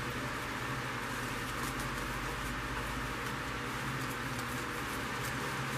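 Steady background hiss with a low hum, and faint scattered rustles and soft clicks as artificial flower stems are handled and pushed into a foam ball.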